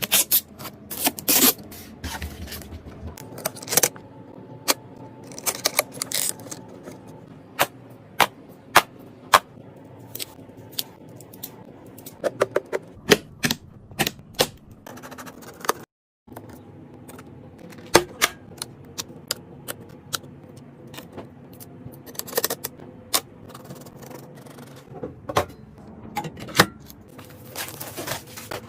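Irregular sharp clicks, taps and scrapes of computer parts being handled and fitted together during a PC build.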